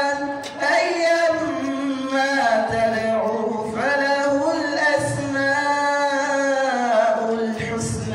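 A man's melodic Quran recitation (tilawah) into a microphone: long drawn-out vowels held on ornamented, gliding notes, with a short breath about half a second in.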